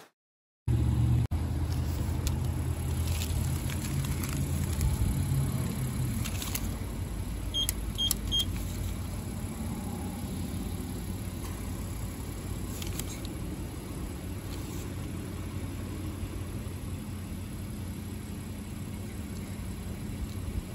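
Car idling with a steady low hum that eases after about six seconds, with three short high beeps about eight seconds in.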